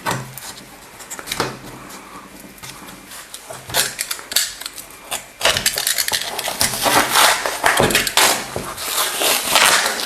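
Layers of stacked paper inside a Qi charging pad being torn and scraped apart by hand, an irregular crackling and rasping that grows louder and denser about halfway through.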